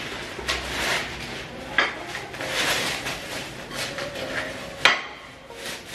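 Plastic shopping bags and packaging rustling as dishes are unpacked, with two sharp clinks of ceramic plates knocking together, the second one near the end and the louder.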